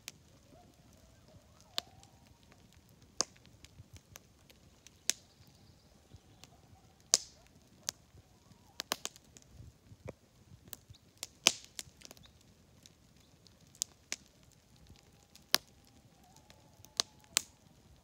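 Campfire wood crackling with irregular sharp pops and snaps, the loudest about seven and eleven and a half seconds in. Faint wavering coyote yelps near the start and again near the end.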